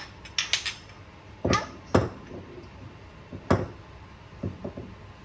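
A series of sharp knocks and clatters of hard objects being handled and set down, about six in all and irregularly spaced, the loudest two about a second and a half and two seconds in.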